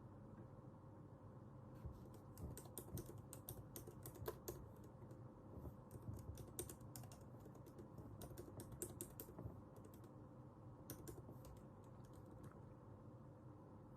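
Typing on a computer keyboard: quick runs of key clicks starting about two seconds in, a pause, then a few more keystrokes, over a faint steady room hum.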